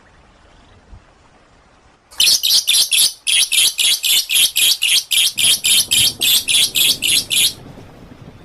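A songbird giving a rapid run of short, loud, repeated high notes, about five a second: a fast 'tembakan' (shot) phrase of the kind used to tutor cage songbirds. It starts about two seconds in, pauses briefly, then runs on for about five seconds before stopping abruptly.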